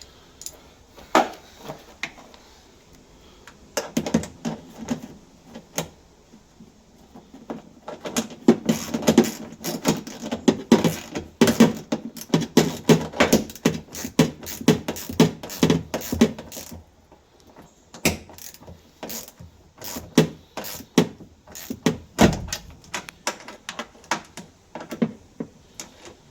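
Hand tools working the bolts of a Land Rover Defender's rear seat box: scattered metal clicks and knocks, then long runs of rapid clicking typical of a ratchet spanner tightening bolts, with one heavier thud near the end.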